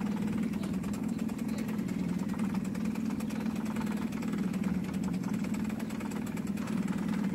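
Boat engine running steadily under way, an even low hum that holds level throughout.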